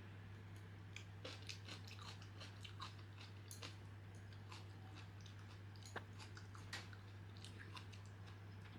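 Faint chewing and biting of food, a scatter of short irregular crunches and wet mouth clicks, over a steady low hum.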